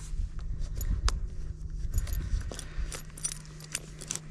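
Small metal pieces of horse tack jingling and clinking in many light clicks as they are handled, over a low rumble.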